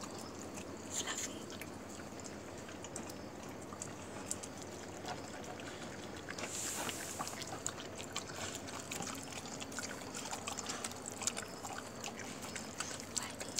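Stray dogs eating wet rice and chicken broth from a bowl: irregular wet lapping and smacking. A short hiss about halfway through.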